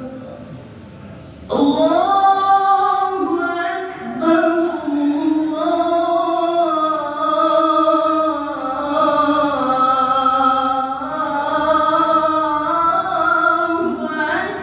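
A single voice chanting long, drawn-out melodic phrases, each note held and sliding between pitches. It breaks off near the start and comes back about a second and a half in.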